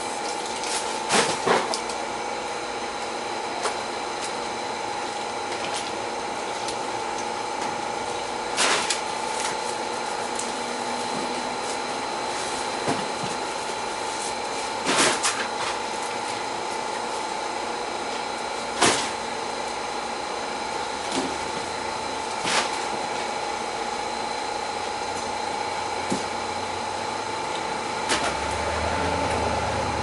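Steady mechanical hum with a constant tone, broken by several sharp knocks spread through it; near the end, boots squelching through wet mud.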